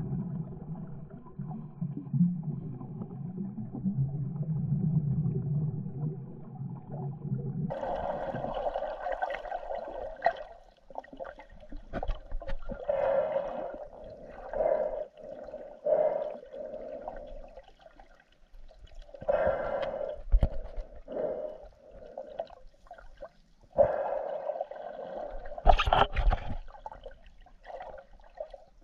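Muffled underwater sound picked up by a camera in a waterproof housing. A steady low rumble runs for about eight seconds, then gives way abruptly to irregular gurgling bursts of moving water, a few of them sharp and loud.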